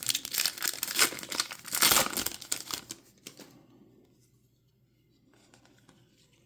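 Trading card pack wrapper being torn open and crinkled for about three seconds, then only faint handling.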